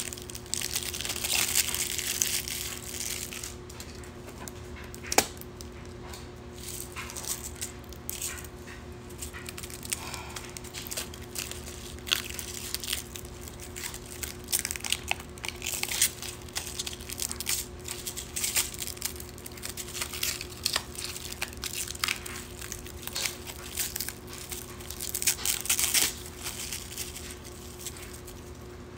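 Clear plastic wrapping crinkling and crackling as it is pulled off a small plastic rhinestone case. Scattered clicks and taps come from the case being handled, with one sharp click about five seconds in.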